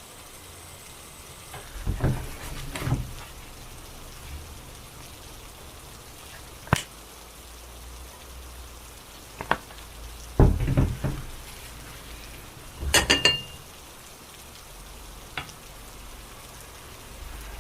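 Kitchen cooking sounds: a steady soft hiss under utensils and dishes clinking and knocking every few seconds, a few of the clinks ringing briefly.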